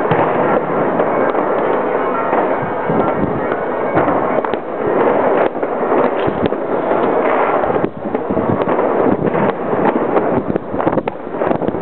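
Street riot sounds: many sharp bangs and pops going off over a dense, continuous din.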